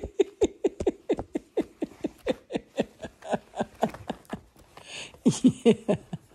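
Puppy whining in a quick run of short, squeaky yelps, about four a second, each falling in pitch, with a louder cluster near the end: an excited, worked-up puppy.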